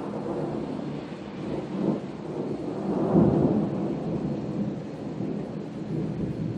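Rolling thunder: a long low rumble that builds, peaks about three seconds in, then slowly eases off.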